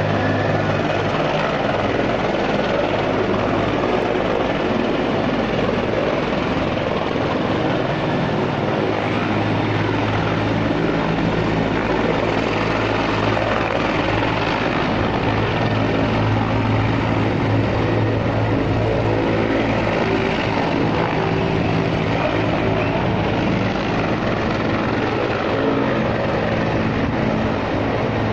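Turbine-powered Bell UH-1H Huey helicopter running steadily, its engine and rotor holding an even pitch with no letup.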